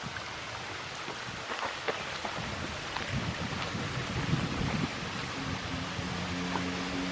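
Small forest stream running over stones: a steady rush of water with faint splashes. Music fades in near the end.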